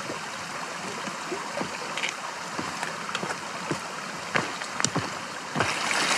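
Steady rushing of a nearby stream, with irregular clicks and taps of trekking-pole tips and boots on a stony path that grow louder as the walker comes closer. About five and a half seconds in, the rushing water suddenly gets louder.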